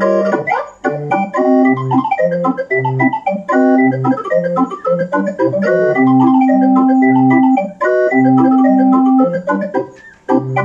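Electronic barrel organ playing a tune from a cardboard music book as its crank is turned: a bass note on each beat under many short, quickly repeated melody notes. Two long held notes sound in the middle, and the music briefly drops out near the end before the next chords.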